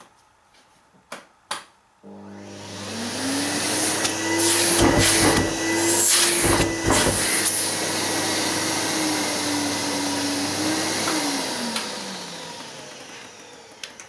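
Workshop vacuum cleaner, drawing through a cyclone dust separator, switched on about two seconds in: it spins up to a steady high hum and runs with its suction at the hose end sounding strong. About five to seven seconds in there are gusty surges of rushing air as the hose end is handled, and from about eleven seconds the motor is switched off and winds down with a falling pitch.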